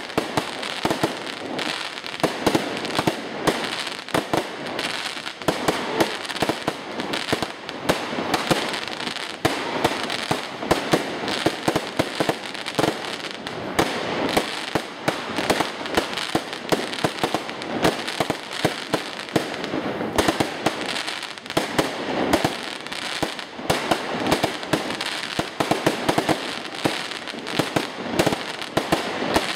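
Aerial fireworks display: a dense, continuous barrage of shell bursts, with many sharp bangs every second and crackle between them.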